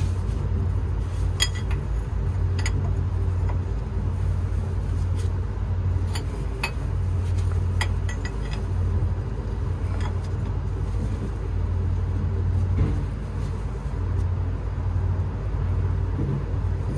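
Diesel engine idling steadily with a constant low hum, over which metal tools clink now and then against hydraulic pipe fittings.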